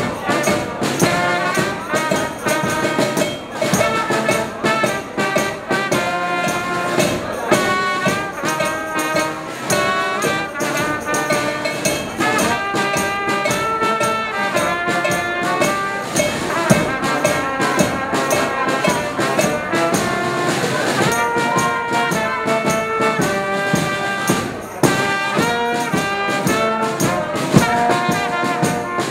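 Small carnival brass band playing a lively tune: trumpet and a low brass horn carry the melody while a tambourine is shaken and struck and a drum keeps the beat.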